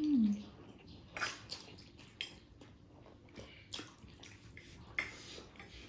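Eating sounds of a mukbang: wet chewing and slurping of laphing and ramen noodles in short irregular bursts, with a brief hummed 'mm' at the start.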